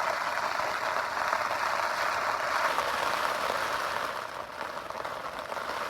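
Heavy rain falling steadily, an even hiss that eases slightly after about four seconds.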